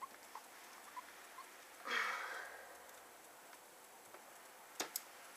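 Faint small ticks and handling noise from a precision screwdriver turning a tiny screw into a BlackBerry Pearl 8100's plastic housing. A louder rustling scrape comes about two seconds in, and two sharp clicks close together near the end.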